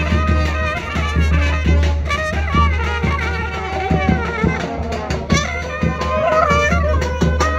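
Live trumpet band playing a folk tune: trumpets carry a melody over a steady drum beat.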